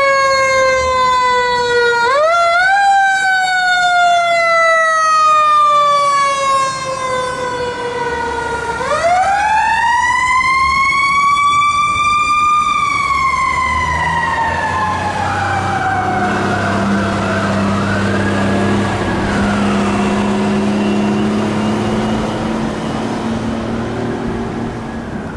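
Fire truck siren rising quickly in pitch and slowly falling away, three times: twice close together at the start, then a longer, higher rise about nine seconds in that dies away over several seconds. In the second half a fainter wavering siren and a steady low drone carry on.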